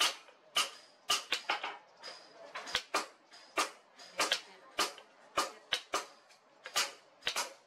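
Repeated sharp knocks, irregular, about two or three a second, as a wooden sword handle with a metal ferrule is driven down onto the hot tang of the blade.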